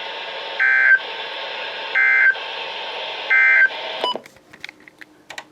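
Emergency Alert System end-of-message: three short bursts of digital SAME data tones, about 1.3 s apart, over a steady broadcast hiss, signalling that the alert is over. A little after 4 s the hiss cuts off, leaving a few faint clicks.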